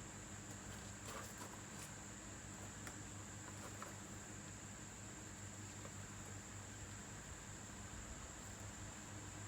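Faint steady low hum with a thin high-pitched whine over it, and a few light ticks in the first couple of seconds.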